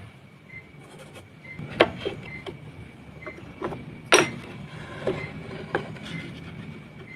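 Scattered sharp clicks and knocks of tools and workpieces being handled, the loudest about four seconds in, over a low rumble, with a faint high chirp repeating about once a second.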